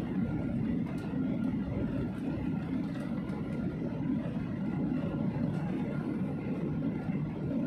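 Steady rumble of a jet airliner heard from inside the cabin over the wing as it rolls along the runway after landing: engine noise and the wheels on the runway, with a faint steady whine over a low roar.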